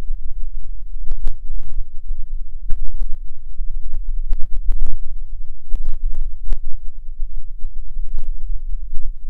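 Wind buffeting the camera microphone: a loud, unsteady low rumble broken by many irregular sharp pops.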